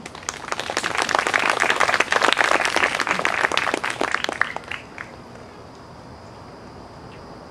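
Audience applauding, the clapping swelling within the first second and dying away after about four and a half seconds, with a few last claps.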